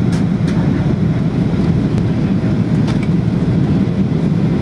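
Steady cabin roar inside a Boeing 737-800 on approach, from its two CFM56-7 turbofan engines and the airflow past the fuselage, heard from a window seat behind the wing. There are a couple of faint clicks near the start and about three seconds in.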